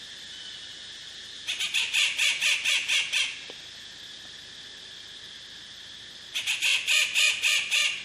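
A wild bird calling: two phrases of rapidly repeated, high, harsh notes, about six a second, the second beginning a few seconds after the first ends. A steady high hiss sits under them throughout.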